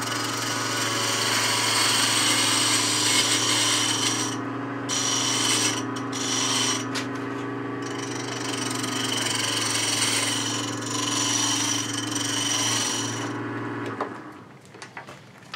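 Wood lathe running with a steady motor hum while a gouge makes light cuts along the spinning pepper mill blank, a hissing of shavings with a few short pauses, taking down a hump in the middle of the body. About fourteen seconds in the lathe is switched off and the hum and cutting stop.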